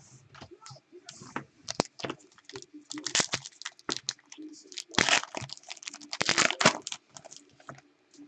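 A trading-card pack's wrapper being torn open and crinkled, with cards handled in between. It sounds as a run of sharp crackles and clicks, densest about three seconds in and again from about five to seven seconds in.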